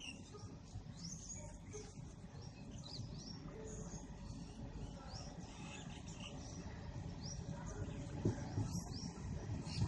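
Small birds chirping over and over in short rising calls, over the low rumble of a distant train approaching, which grows louder toward the end.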